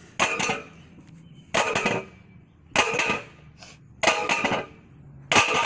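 Steel basketball pole sections being banged end-down on the ground five times, about one and a half seconds apart, each strike a metallic clang with a brief ring. The heated pole is being knocked to drive apart sections that are stuck together.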